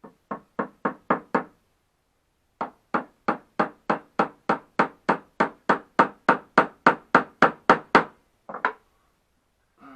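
Hand hammer tapping pins into a box: a quick run of about five taps, a short pause, then a long steady run of about twenty taps at roughly three a second, and two last taps near the end.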